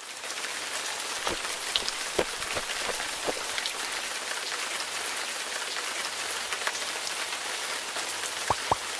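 Steady rain falling, an even patter with single louder drops standing out now and then, two of them close together near the end.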